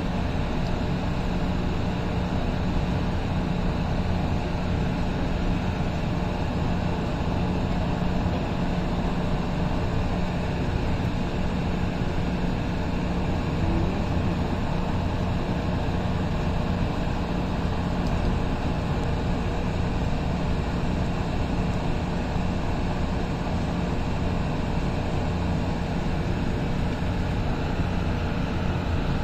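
Steady noise of a light rail car on Mexico City's Tren Ligero, with a constant low hum and no change in pitch or loudness.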